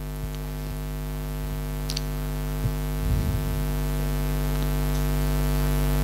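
Electrical mains hum from the room's microphone and PA system, a steady buzz of many stacked tones that slowly grows louder, with a few faint clicks.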